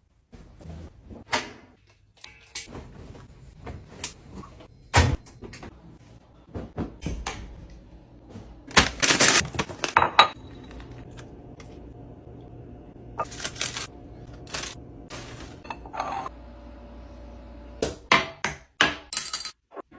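Assorted clicks, clinks and knocks of containers and household items being handled and set down while restocking, with louder clattering bursts about midway and again near the end.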